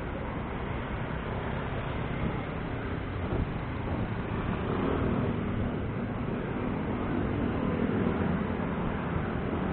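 Road traffic heard from a bicycle: cars, vans and motorcycles running close alongside. A vehicle's engine hum comes up a little louder about five seconds in and holds until near the end.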